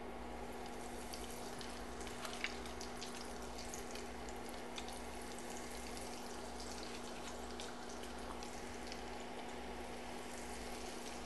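Panko-breaded avocado slices deep-frying in hot oil in a saucepan: a steady sizzle with scattered small crackles.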